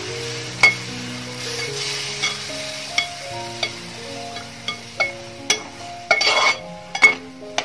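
Metal spatula stirring a big metal pot of garlic pickle, knocking and scraping on the pot's side with ringing clinks about once or twice a second and a longer scrape about six seconds in. Underneath is the sizzle of the pickle masala cooking on full heat just after the vinegar has been added; the sizzle fades toward the end. Soft background music with held notes plays throughout.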